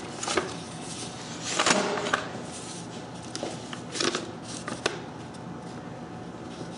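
Paper rustling and crinkling as a folded paper card and its envelope are handled and opened out, with a few sharper crackles about 1.7, 4 and 5 seconds in.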